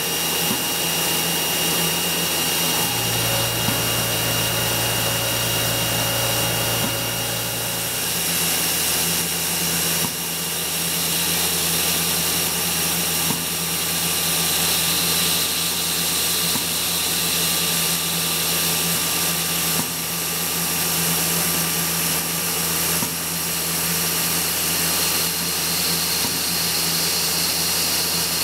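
CNC milling machine's spindle running at high speed with a tiny end mill cutting pivot holes in brass sheet: a steady high whine over a steady hiss, the level creeping up and dropping back about every three seconds. A low hum joins in from about three seconds in to about eight seconds.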